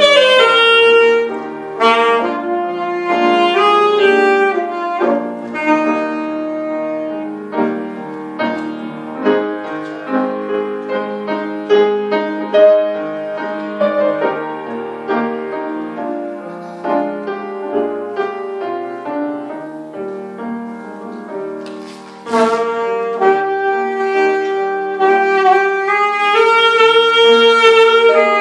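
Saxophone playing a slow melody over piano accompaniment. A quieter stretch led by piano sits in the middle, and the saxophone comes back in strongly about three-quarters of the way through.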